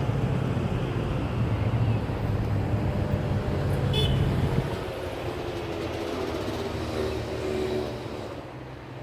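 Low rumble of road vehicles, with a short high beep about four seconds in. The rumble drops after about five seconds, and a few steady pitched tones sit above it.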